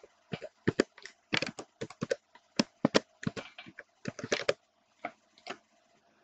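Typing on a computer keyboard: a quick, irregular run of key clicks that thins out and stops a little before the end.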